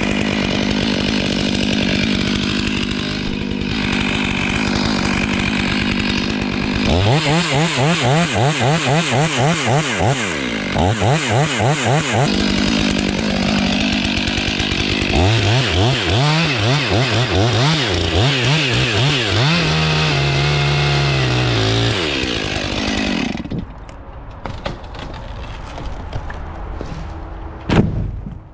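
Stihl MS 500i two-stroke chainsaw running at high revs, its pitch wavering quickly up and down for two stretches as the load on the engine changes. Near the end the pitch sinks and the saw drops away abruptly, followed by a single sharp knock.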